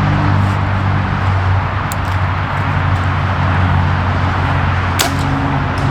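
Steady low engine hum, like a vehicle idling, over a wash of outdoor noise. Two short sharp clicks come through, about two seconds and five seconds in.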